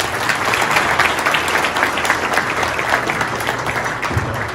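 Audience applauding, many people clapping at once; the applause thins out near the end.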